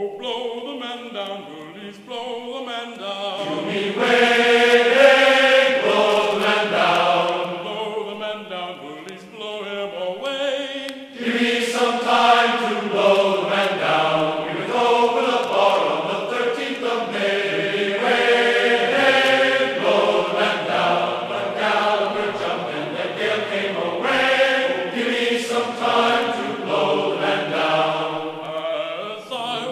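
Background music of choir-like chanting: several voices singing long, held notes together, with a short dip about ten seconds in.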